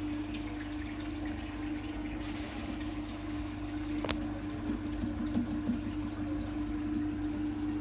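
Aquarium air pump humming steadily while an air stone bubbles in the water, with one sharp click about four seconds in.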